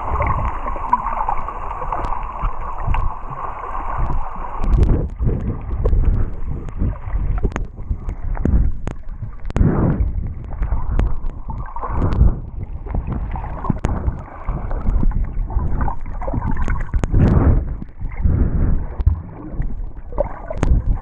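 Muffled water sounds from a camera held underwater: gurgling and sloshing, with irregular low surges as the swimmer moves through the water.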